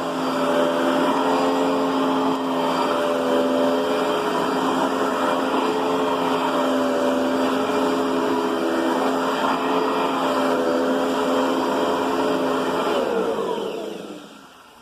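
Riccar Brilliance upright vacuum cleaner running at a steady pitch, then switched off near the end and winding down.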